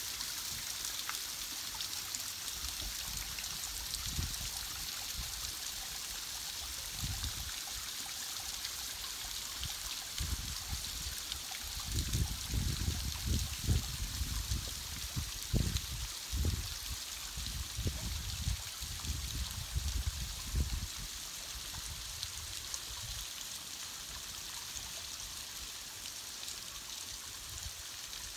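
Steady hiss of fine water spray and trickles falling from a rock cliff onto the surface of a lake, with irregular low rumbles through the middle stretch.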